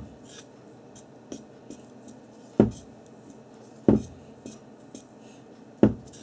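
An old kitchen knife spreading and scraping epoxy around the inside of a metal motorcycle flywheel rotor, with light scraping and small clicks of the blade on metal. Dull knocks come once at the start and three more times in the second half, the loudest sounds here.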